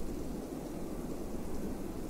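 Steady, low wind noise: a continuous even rush without gusts or separate sounds.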